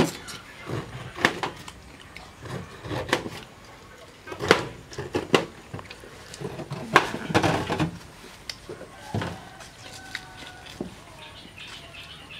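Fresh pineapples being cut with knives and bitten into: irregular sharp crunches and clicks, about a second apart. Faint bird chirps come in near the end.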